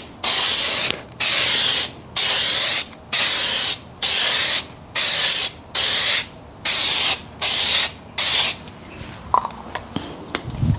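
Aerosol can of headlight lens coating spraying in short hissing bursts, about one a second, as the first coat is swept side to side across the lens. The spraying stops a little over eight seconds in, followed by a few faint knocks and a low thump.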